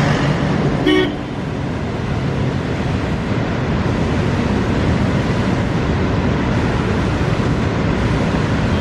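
A short vehicle horn toot about a second in, over a steady rushing roadside noise.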